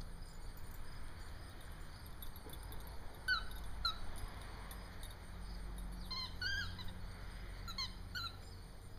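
A dog's squeaky toy ball squeaking faintly in short, separate chirps: two about three seconds in, a quick cluster around six seconds, and two more near the end.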